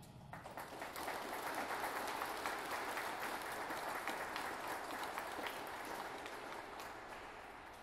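Audience applauding: many hands clapping. The applause swells up within the first second and tails off over the last couple of seconds.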